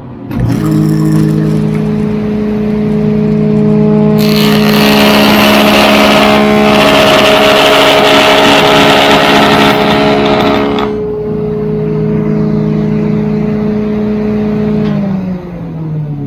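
Power saw fitted with a triple-cutter molding head: the motor starts and comes up to a steady hum, then the cutters run through a board for about seven seconds cutting a 3/4-inch groove, loud and rough. Afterwards it runs free again and is switched off, its pitch falling as it winds down near the end.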